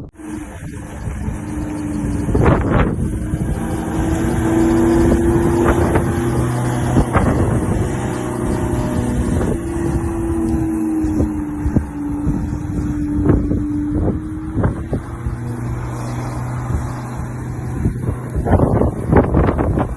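Certified 17-inch 12 A electric lawnmower running while mowing, a steady motor drone whose pitch dips and rises slightly, with occasional short knocks.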